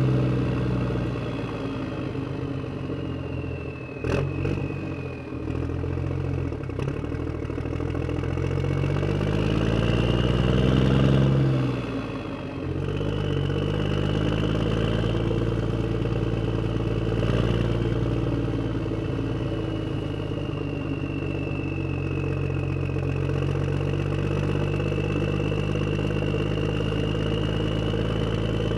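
An engine running steadily, rising in pitch to a rev from about eight to eleven seconds in and dropping back at about twelve seconds, with a sharp knock about four seconds in.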